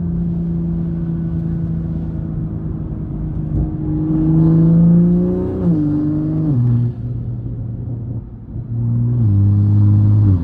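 2021 Toyota Supra's turbocharged engine with a catless downpipe and single-exit exhaust, heard from inside the car while driving. It runs steadily, revs up about four seconds in, then drops in pitch in several steps as the gears change.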